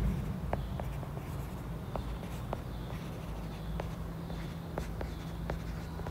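Stylus tip tapping and clicking on a tablet's glass screen during handwriting, a few separate sharp ticks spread irregularly, over a low steady hum.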